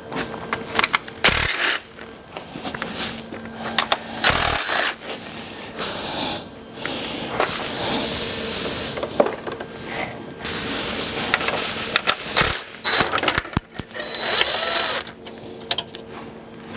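Cordless impact tool hammering at bolts under a car's front end, run in about six bursts of a second or two each with short pauses between.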